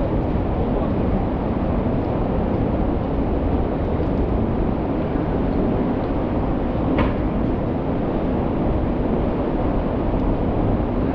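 Steady low rumble of busy city street noise and traffic, with a single short click about seven seconds in.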